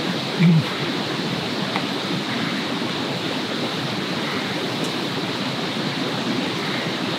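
Steady rushing outdoor background noise with a few faint ticks. About half a second in there is a short, low hum from a person.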